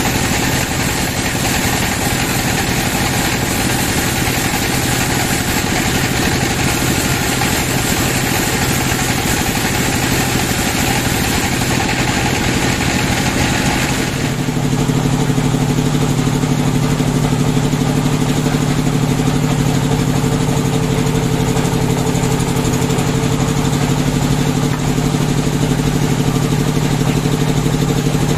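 Sawmill band saw cutting through a large wooden slab, a dense steady hiss of blade in wood over the machine's drone. About halfway through, the cut ends and the hiss drops away, leaving the saw running free with a steady low hum.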